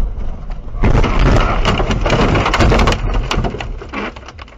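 A car crashing off the road through bushes and branches: a loud rush of crunching, scraping and snapping starts about a second in and lasts about two seconds, then dies down to scattered cracks and taps.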